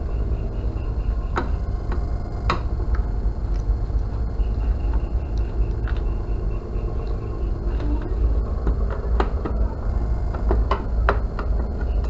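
Screwdriver and handling clicks and knocks as the plastic back cover of a CRT television is unscrewed and worked loose. They come at irregular intervals over a steady low rumble, and a faint high rapid ticking comes and goes.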